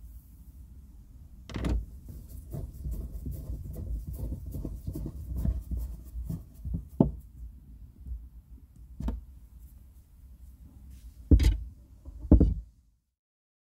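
Screwdriver refitting a screw into the plastic grab handle of a VW Golf Mk5 tailgate trim panel: a quick run of small ticks, about five a second, as the screw is turned, with several sharp knocks of the tool against the plastic trim. The loudest knocks come twice near the end, then the sound cuts off suddenly.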